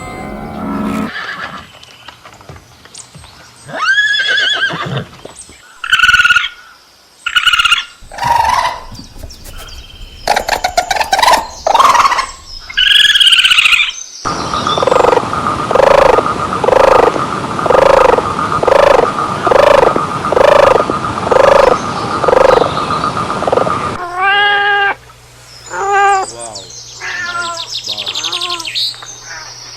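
A series of different animal calls, one after another. In the middle comes a stretch of about ten seconds of evenly repeated calls, a little more than one a second.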